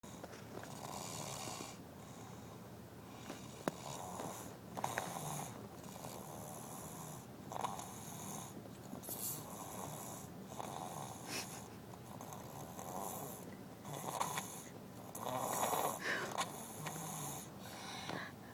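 A sleeping child snoring, a breathy snore on each breath, about one every one and a half to two seconds. A single sharp click a little under four seconds in.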